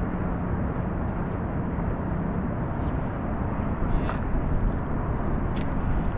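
Wind buffeting the camera microphone, a steady low rumble, with a few faint clicks.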